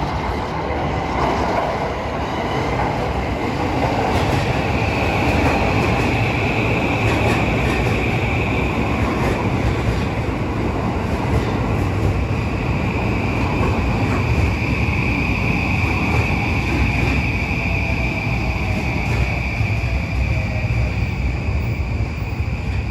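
Electric commuter train running through the station: a steady rumble of wheels and motors, with a steady high whine that comes in about four seconds in.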